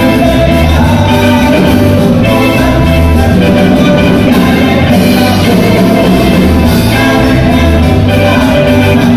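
Loud Latin American dance music with singing, played over a sonidero sound system, with a pulsing bass.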